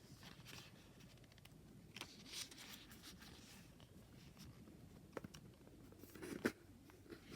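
Tarot cards being handled in a silent flip-through: faint rustles and soft clicks of card stock sliding and being laid down, with a sharper tap about six seconds in.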